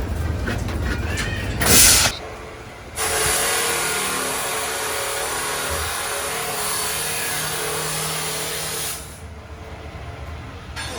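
Exhaust-shop tool work: a short burst of hiss about two seconds in, then a power tool running steadily for about six seconds before it stops abruptly.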